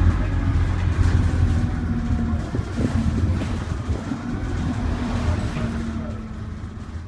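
Alexander Dennis Enviro 200 bus's Cummins diesel engine running steadily, with the ticking the bus was making, growing fainter toward the end.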